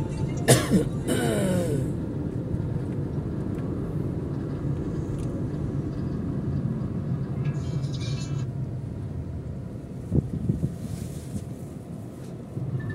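Steady engine and road rumble inside a moving car's cabin, easing as the car slows to a stop in traffic. A sharp click comes about half a second in and a short knock about ten seconds in.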